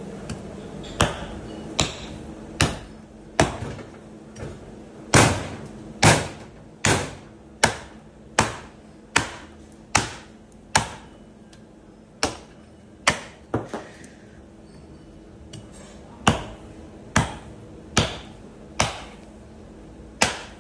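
A hatchet chopping into a sheep's head on a wooden butcher's block: about twenty sharp blows of metal into bone, roughly one a second, broken by two short pauses.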